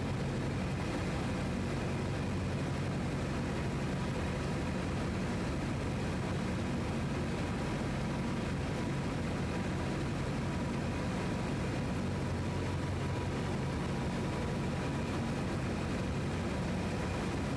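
Piper PA-17 Vagabond's small four-cylinder Continental A-65 engine running steadily at low taxi power, heard from inside the cabin.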